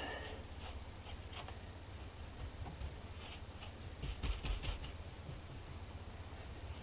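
Paintbrush working wet acrylic paint on a board: faint scattered scratchy strokes and taps, with a short cluster of louder bumps and scrapes about four seconds in, over a faint steady hum.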